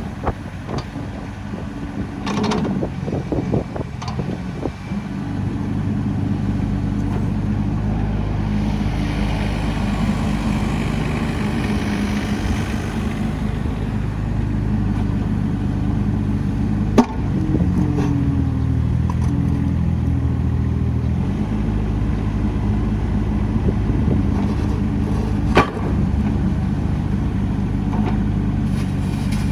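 Diesel engine of a Cat 302.7DCR mini excavator running steadily, after a few seconds of scattered knocks. Its note shifts for a few seconds past the middle, with a couple of sharp clicks.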